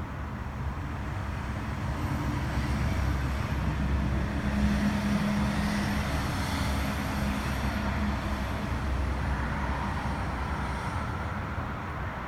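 Military helicopter flying over: a low rotor and engine rumble with a faint high turbine whine. It swells about two seconds in and then slowly fades as it passes.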